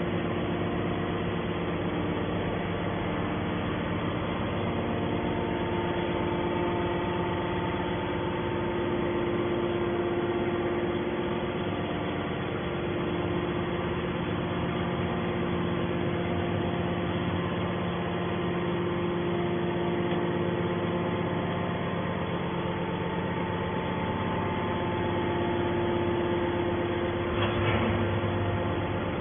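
Scrap metal baler's hydraulic power unit running steadily: a continuous machine hum with several held tones. A brief louder rush comes near the end.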